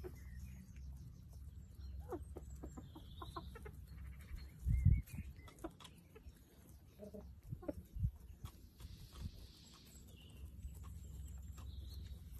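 Chickens foraging on grass: scattered short clucks and calls with light pecking clicks over a steady low rumble. A loud dull thump about five seconds in and a smaller one near eight seconds.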